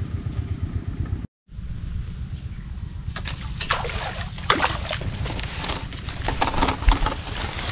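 Wind rumbling on the microphone, cutting out completely for a moment about a second in. From about three seconds on, tall grass and reed blades rustle and crackle in quick, irregular strokes as they brush past.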